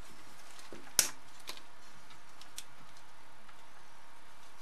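Bug zapper's plastic housing coming apart off its plastic clips: one sharp snap about a second in, then a few faint clicks of plastic parts.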